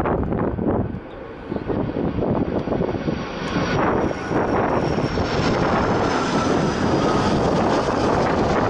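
Airliner engines running loudly, with a faint high whine, mixed with strong wind buffeting the microphone.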